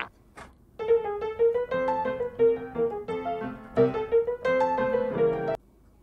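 Short piano melody of quick notes, starting about a second in and stopping abruptly near the end, with a faint rising boing sound effect just before it.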